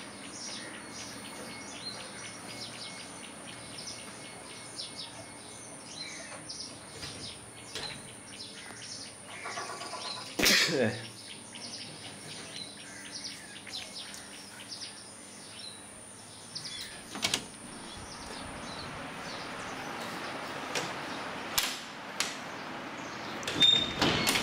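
Birds chirping, many short high calls, busiest in the first half. A few sharp knocks and clicks break in, the loudest about ten seconds in and a cluster near the end.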